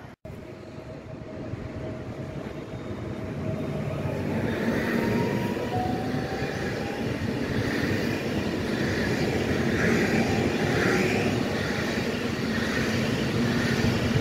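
Electric multiple unit approaching and running past close by: rail and wheel noise grows louder over the first few seconds, then holds steady as the train passes. A faint whine glides in pitch as it comes in.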